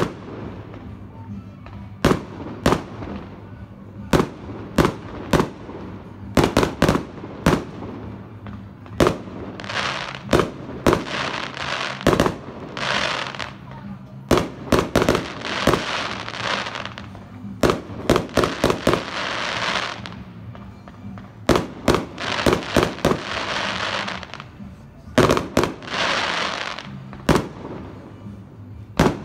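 Aerial fireworks going off: a long, irregular series of sharp bangs, at times several in quick succession. These are mixed with stretches of hissing crackle a couple of seconds long as the shells burst.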